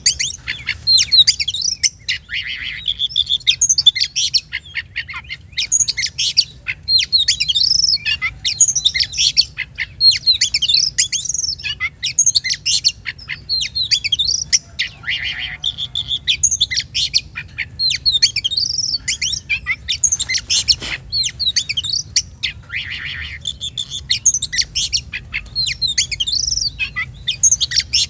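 Oriental magpie-robin (kacer) singing a fast, varied song of sweeping whistles and chirps that runs almost without a break.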